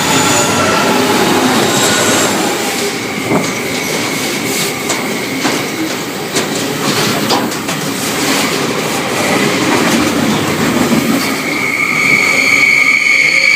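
Freight train hauled by LDP class diesel locomotives passing close by, with loud rumble and repeated clicks of the wheels over the rail joints. Near the end a high-pitched wheel squeal sets in and grows stronger.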